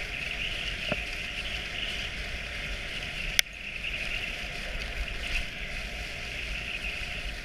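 Dog sled gliding over packed snow behind a running dog team: a steady hiss from the runners and the dogs' movement, with a low rumble underneath. A single sharp click comes a little after three seconds in.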